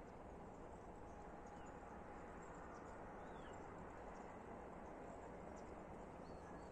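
Near silence: a faint steady outdoor hiss, with a few faint short bird chirps.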